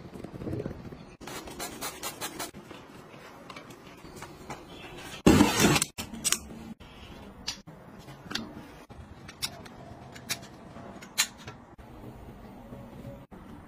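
Hands handling plastic household gadgets: scattered sharp clicks, taps and scrapes, with one louder rustling scrape a little past five seconds in.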